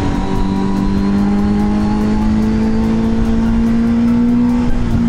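Honda CBR650F inline-four engine through an aftermarket Akrapovic titanium exhaust, pulling steadily under way: its note rises slowly as the bike gains speed, then dips slightly near the end, as at a gear change or an easing of the throttle. A rough rush of wind noise runs underneath.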